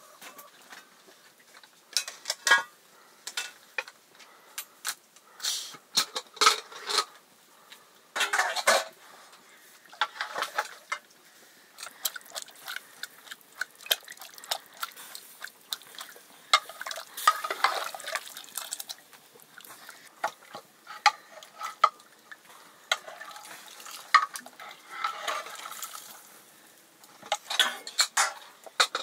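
Cookware and metal utensils clattering at irregular intervals, with scattered clinks and knocks and a few scraping sounds about a second long.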